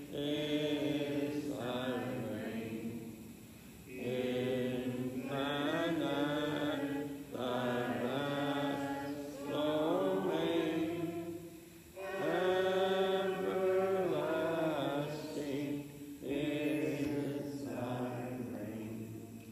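Slow sung chant: a vocal melody in phrases a few seconds long, with short breaks between them.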